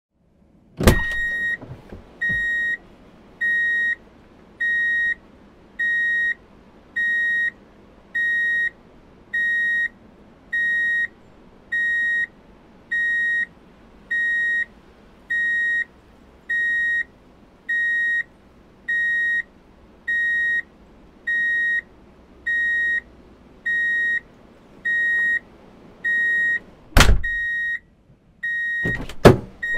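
Car's reverse-gear warning alert: a single high beep repeating evenly about once a second, each beep about half a second long. A sharp clunk opens it, and two more loud clunks come near the end.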